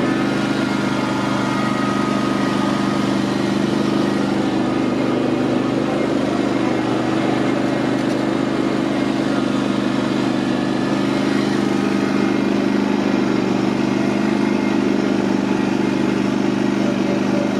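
Cub Cadet GT2544 garden tractor's engine running at a steady, constant speed while the tractor is driven in reverse, on a test drive after its BDU10 transmission was refilled with fresh oil.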